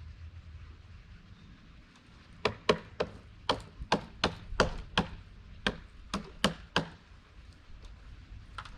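A run of about a dozen sharp knocks on wood, roughly three a second, starting about two and a half seconds in and stopping near seven seconds.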